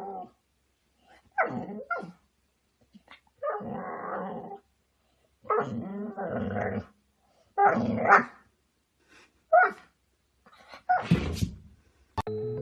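A dog barking and growling in a series of separate bursts, some short and sharp, some drawn out for a second or more, with short silences between.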